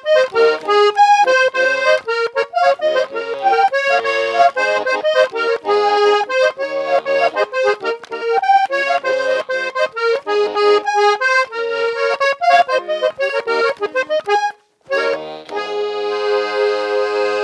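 Instrumental background music: a quick melodic line of short notes, breaking off briefly near the end and closing on a long held chord.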